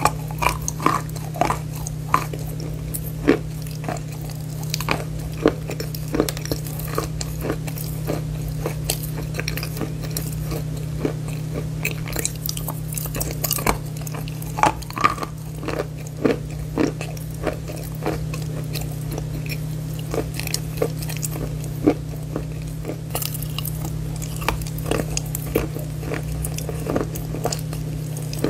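Close-up crunching and chewing of a bar of chalk: irregular sharp crunches as the chalk snaps between the teeth, then softer chewing, over a steady low hum.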